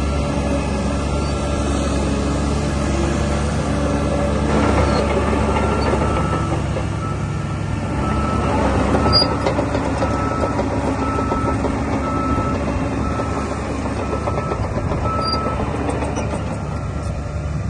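DH17 C2 LGP bulldozer's diesel engine running steadily, with its reversing alarm beeping about once a second from about five seconds in until a couple of seconds before the end.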